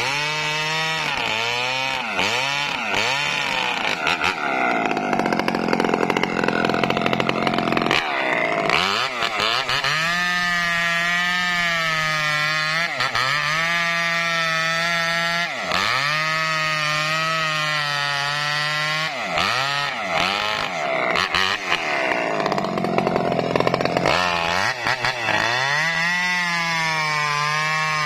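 Chainsaw running at high revs while cutting through a felled coconut palm trunk. Its pitch sags repeatedly as the chain bites into the wood and climbs back between cuts, with a few longer stretches of steady cutting.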